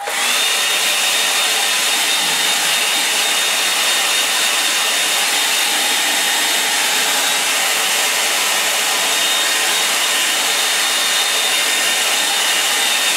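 Hand-held hair dryer switched on and running steadily: a constant rush of blown air with a thin high whine over it, drying a wet watercolour wash.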